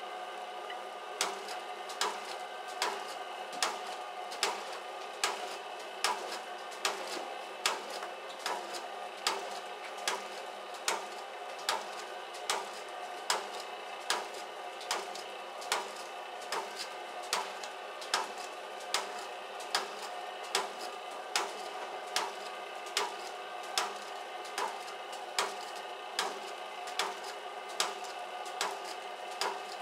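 US301s pouch-handling machine running with 0.6 g salt pouches: a steady motor hum with a sharp mechanical click about every 0.8 seconds, in an even cycle.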